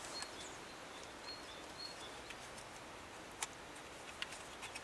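Quiet outdoor ambience with a bird's short, high chirps repeating several times. A few small clicks from handling the plastic camera grip; the sharpest comes about three and a half seconds in.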